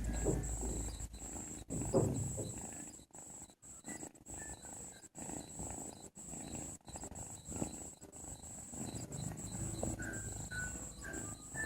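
A cat snoring in its sleep: rough, rasping breaths that rise and fade every second or two.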